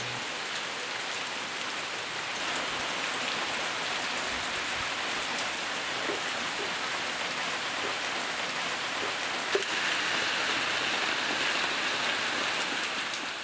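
Steady rain falling, with small drips standing out here and there and a single sharp tap about two-thirds of the way through.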